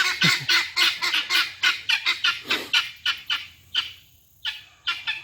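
Guinea fowl calling in a fast run of short, repeated calls, about four a second; the calls thin out, stop briefly around four seconds in, and start again near the end.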